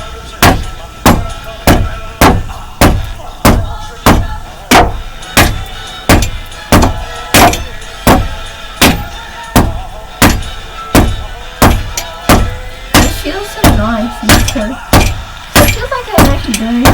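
Hammer blows on a Master Lock combination padlock: a steady run of sharp metallic clanks, a little under two a second, each ringing briefly.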